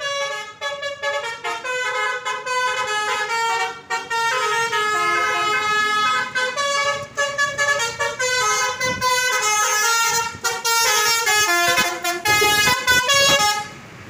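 A bus's multi-trumpet telolet horn (Basuri) playing a fast melody, several tones at once stepping quickly from note to note. It plays almost without a break, dips briefly about four seconds in, and cuts off just before the end.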